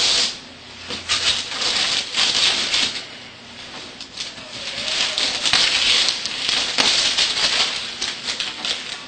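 Gift wrapping paper crinkling and tearing as a present is unwrapped by hand, in surges of crackly rustling.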